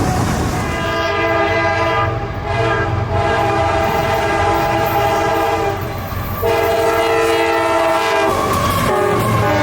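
CSX freight locomotive's multi-chime air horn sounding a chord in long blasts, with a short break about six seconds in, over the low rumble of the train. The horn's pitch drops slightly near the end.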